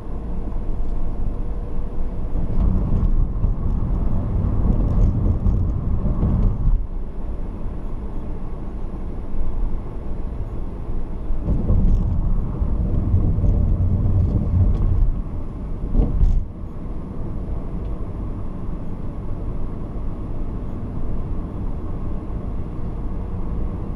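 A car's engine and tyre noise while driving, a steady low rumble that swells for several seconds twice, in the first third and again around the middle.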